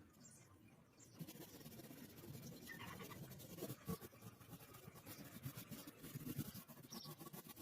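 Faint, irregular scratching with light clicks, starting about a second in.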